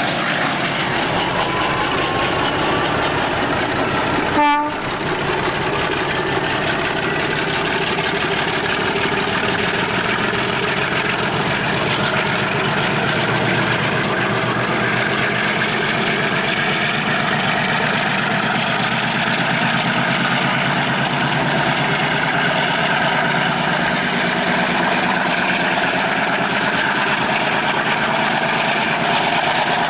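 MLW MX627 diesel-electric locomotive working hard as it pulls a passenger train away, a steady heavy engine sound with a high whine rising slowly in pitch. A sharp click about four and a half seconds in.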